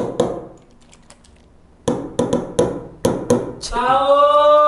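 A run of sharp clicks and taps from a small plastic e-liquid bottle being handled and shaken. About three and a half seconds in, a man starts a long, loud held note, sung rather than spoken, which is the loudest sound here.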